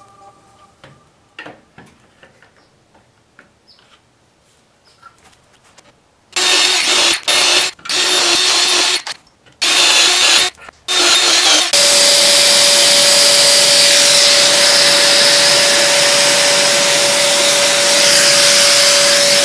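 A few faint clicks, then a cordless drill boring handle holes in a wooden board through a drilling jig, in about five short bursts that start and stop. About halfway in, a Mirka Deros random orbital sander takes over, running steadily with a constant hum.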